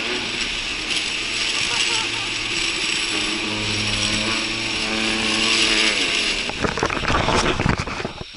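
Metal rollers of a long roller slide rattling steadily as a rider slides down, turning into a run of knocks and clatter near the end as the ride slows to a stop at the bottom. A voice is heard over the rattle through the middle.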